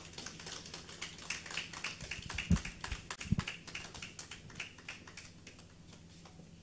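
Light applause from a small audience, a patter of claps that thins out and dies away about five seconds in, with two dull thumps in the middle.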